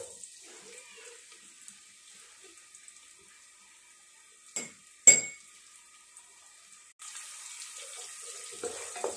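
Chopped onions sizzling faintly in hot oil in a pot, with two sharp knocks about five seconds in. From about seven seconds the frying sizzle is suddenly louder and steady as the onions are stirred with a wooden spatula.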